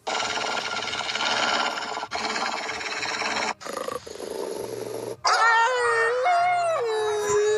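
Wolves howling: several voices glide up and down in pitch from about five seconds in, and one falls and settles into a long steady note. Before that there is a harsh, rough noisy stretch that cuts off abruptly three times.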